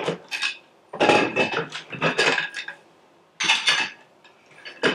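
Metal tube legs of a Husky portable workbench being popped out of their storage clips in the plastic top and set down. They clatter and clink against each other and the plastic frame in several short bursts with brief metallic ringing.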